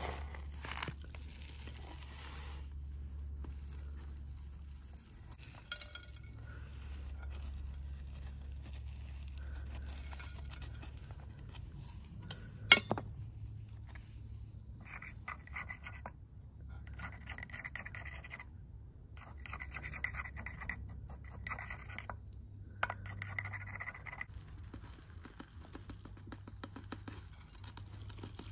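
Gritty soil and small stones scratching and clicking against a small ceramic pot as a succulent is pressed and worked in by hand. There is one sharp click about halfway through, then a run of short scraping strokes about one a second.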